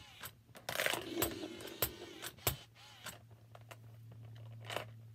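Count 'n Crunch Cookie Monster toy's mechanism working: plastic gears clicking, then a steady motor hum from about halfway in as its mouth opens wide to take a cookie.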